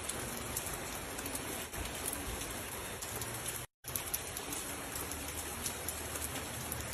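Steady rain falling, an even hiss with scattered ticks of drops; the sound cuts out completely for a split second just before the middle.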